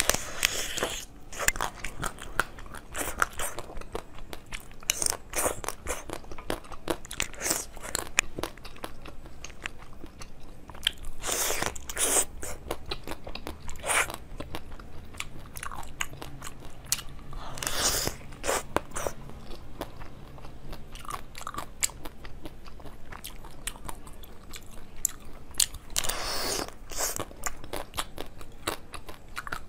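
Biting and chewing into the hard, crunchy coloured shell of a novelty dessert. Steady small crackles run through it, with a handful of louder crunching bites.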